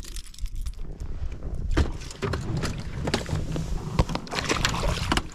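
Wind rumbling on the microphone, with scattered clicks and knocks from handling the pike and rod against the boat's gunwale.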